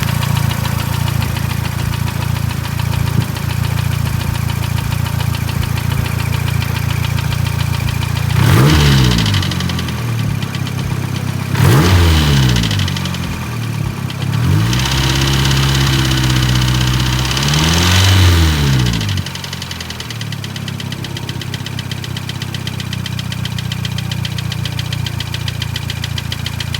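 Mazdaspeed3's built 2.3-litre turbocharged four-cylinder engine idling, revved briefly twice, then held at raised revs for a few seconds before dropping back to idle. The owner takes the knock in it for rod knock.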